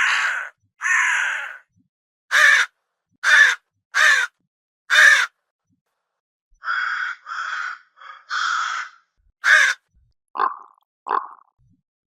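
Crow cawing repeatedly: about a dozen separate caws in two runs, the second starting after a pause of about a second and a half.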